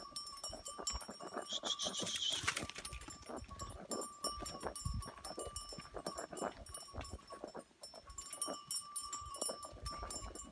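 A herd of goats on the move along a dirt track, with irregular scuffing steps on the dirt. A thin steady high tone runs underneath, and a short hiss comes about two seconds in.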